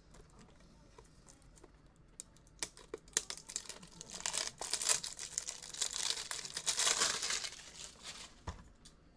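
Trading-card packaging crinkling and tearing as the cards are unwrapped, with many small clicks. It starts about two and a half seconds in, is loudest around the middle and stops shortly before the end.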